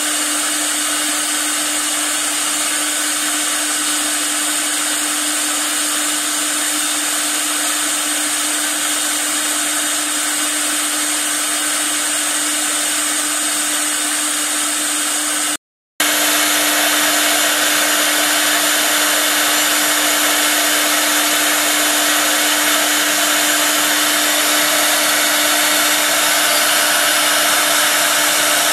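6 kW air-cooled CNC router spindle running steadily as its carving bit cuts a wooden workpiece turning on the rotary axis: a steady tone over an even hiss. It cuts out for a moment a little past halfway, then resumes slightly louder.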